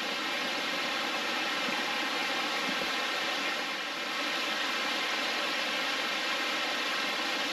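Creek waterfall running over rock, a steady, unbroken rush of falling water.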